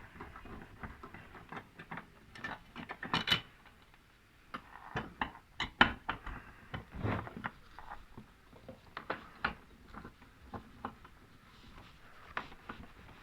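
Metal screws and fittings being worked loose and lifted off an LED TV's casing by hand and tool: irregular light clicks and taps, with a few sharper knocks about three, six and seven seconds in.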